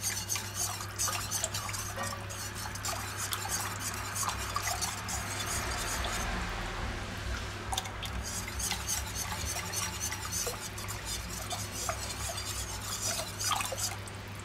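Wire whisk stirring a sauce in a red enamelled pot, its wires scraping and clicking fast against the pot, while a starch-and-water slurry is poured in to thicken the sauce.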